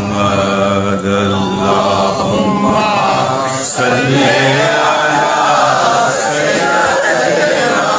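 Men's voices chanting durood (blessings on the Prophet Muhammad) together in a continuous, steady chant.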